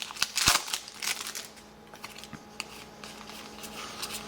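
Trading cards being handled and flipped through: a rustle of card stock with light clicks, busiest in the first second and a half, then fainter scattered ticks.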